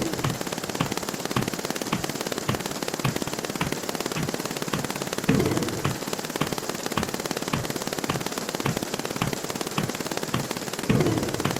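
Counting sound effects played at high speed, merging into a dense machine-gun-like rattle of sharp clicks. It swells louder briefly about five seconds in and again near the end.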